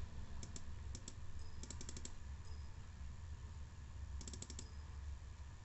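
Computer keyboard keys tapped in a few quick bursts of several clicks each, over a low steady hum.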